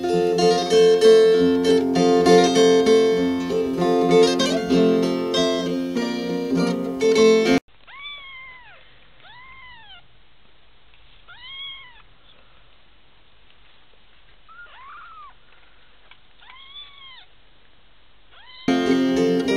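Plucked-string background music for about the first seven seconds, then it cuts out. In the quiet that follows, young kittens mew: about six short, thin calls, each rising and falling in pitch. The music comes back near the end.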